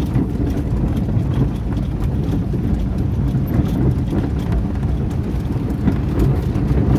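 A vehicle engine running steadily, a dense low rumble.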